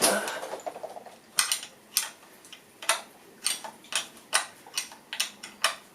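Spanner tightening a bolt on an engine mounting bracket: a metallic scrape as it goes on, then a series of short, sharp metallic clicks about every half second as the bolt is worked tight.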